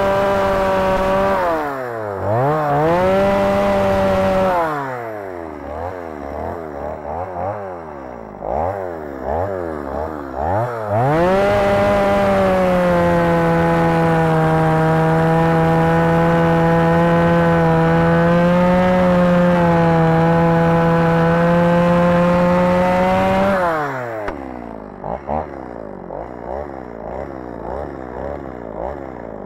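Two-stroke chainsaw cutting stumps at ground level in sand, which dulls the chain. It runs at full throttle with the revs sagging and recovering under load, is blipped up and down for several seconds, then holds a long steady full-throttle cut, and drops back to a low, uneven idle near the end.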